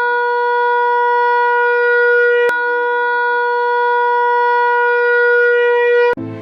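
A long, steady horn blast held at one pitch, with a brief click about two and a half seconds in; it cuts off shortly before the end.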